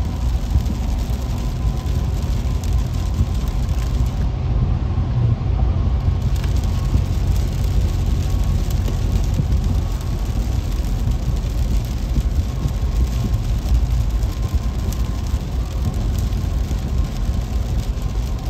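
Steady road noise heard inside a car driving on a wet freeway: a low rumble of engine and tyres on rain-soaked pavement, with a fainter hiss of rain and spray.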